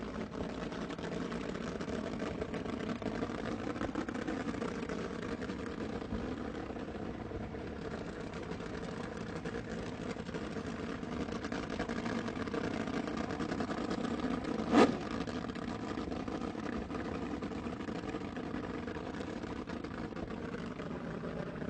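Sports car engine running steadily with an even, slightly wavering hum. One sharp click or pop cuts through about two-thirds of the way in.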